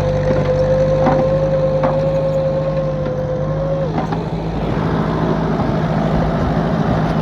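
Tractor engine running steadily, working through deep snow. A high, steady whine rides over it and drops away suddenly about four seconds in, with a few sharp knocks along the way.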